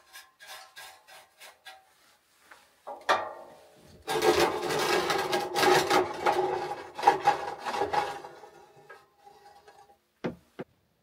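Metal scraping and rattling at a small steel wood stove, the stove body ringing under it: a run of short rhythmic scrapes, then a longer, louder stretch of rasping. Two sharp knocks near the end.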